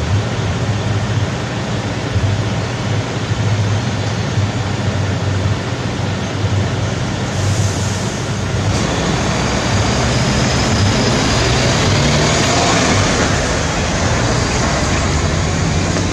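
Road traffic: car and lorry engines idling, then pulling away across the railway tracks as the level-crossing barriers lift. It gets louder from about nine seconds in.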